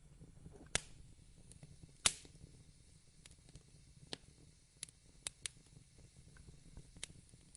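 Wood fire burning in a fireplace, crackling with scattered sharp pops at irregular intervals over a faint low rumble. The loudest pop comes about two seconds in.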